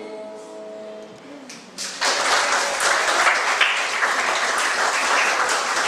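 The last held note of a song with backing music dies away about a second in. Then an audience starts applauding about two seconds in and keeps clapping steadily.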